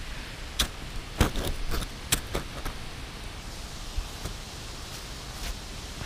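Footsteps crunching in snow close by: a quick run of sharp crunches in the first three seconds, then a few scattered ones over a faint steady hiss.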